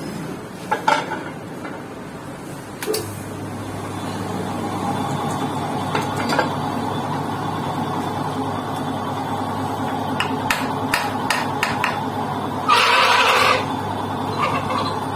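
Workshop machine motor humming steadily from about three seconds in, under sharp metal clinks and knocks from tools and parts being handled, with a quick run of clicks and a rough, loud noise lasting about a second near the end.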